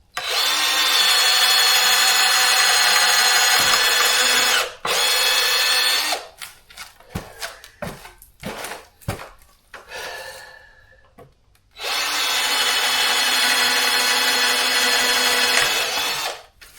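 Power drill running in long steady runs: one of about five seconds, a short burst just after, then another of about four seconds near the end, with knocks and handling clatter in the pause between.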